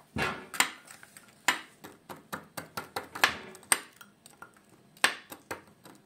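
A metal spoon clinking and knocking against a glass bowl, a string of irregular sharp clinks, as soaked sponge cake is worked in the bowl.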